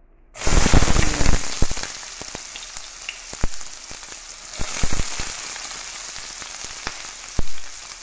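Sliced red onion dropped into hot cooking oil in a frying pan: a sudden loud burst of sizzling about half a second in, then steady sizzling with scattered pops and crackles.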